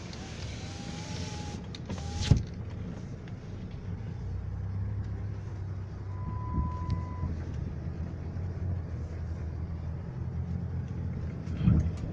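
Car cabin with a steady low engine and road rumble. A power window motor whines for about two seconds and the glass shuts with a thunk, cutting off the wind hiss. About six seconds in a short steady beep sounds, and near the end there is a thump.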